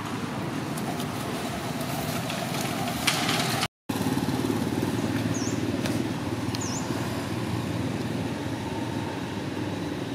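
Steady rumble of motor traffic, engines running, with the sound cutting out completely for a moment just under four seconds in. Two faint short high chirps near the middle.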